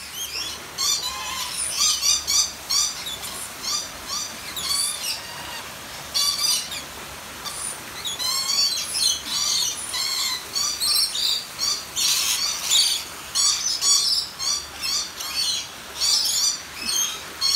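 A flock of aviary lorikeets calling continuously: rapid, high-pitched chirps and squawks from many birds at once, overlapping without pause.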